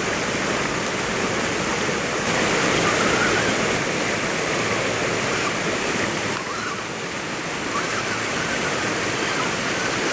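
Shallow river rushing over rock ledges: a steady hiss of fast-moving water.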